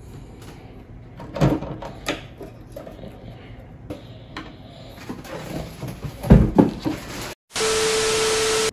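Knocks and clatter of a steel mini-hoop rim being handled against its plastic backboard on a table while it is bolted on, the loudest a couple of thumps about six seconds in. Near the end the sound cuts out and is replaced by a second of loud TV-static hiss with a steady beep tone, which stops suddenly.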